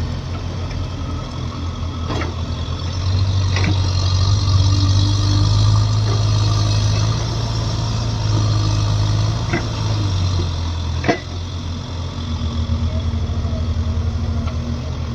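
Diesel engine of a JCB 3DX backhoe loader running, pulling harder and louder for several seconds in the middle while it works, with a few sharp knocks from the machine.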